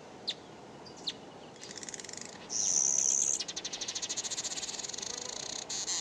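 Southern masked weavers calling: two short sharp notes, then a fast, buzzy, rattling chatter, with a loud drawn-out buzz about two and a half seconds in.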